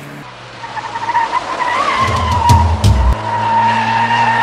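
Car tyres screeching in one long, steady squeal over a low engine hum, with a few low thumps about two to three seconds in.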